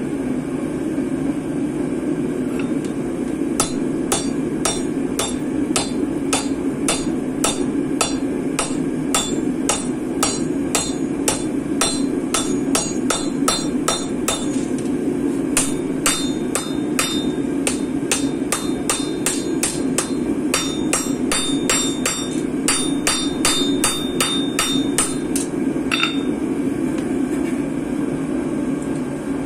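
Hammer blows on hot damascus steel over the anvil, about two a second with a short pause midway, the steel ringing with each strike, over the steady running noise of a gas forge burner. The blows stop a few seconds before the end.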